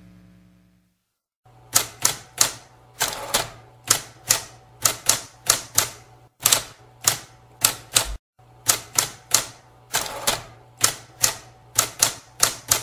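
The last note of a song fades out, then after a short silence typewriter keys strike one by one, about two a second at an uneven pace, with a brief pause a little past the middle, over a faint low hum.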